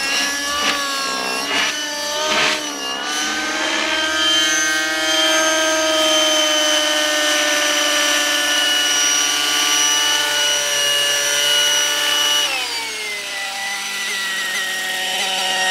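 Radio-controlled model helicopter flying, its rotor and motor whining. The pitch swings up and down during aerobatic manoeuvres for the first few seconds, then rises and settles into a steady high whine. About twelve seconds in it drops to a lower, steady pitch.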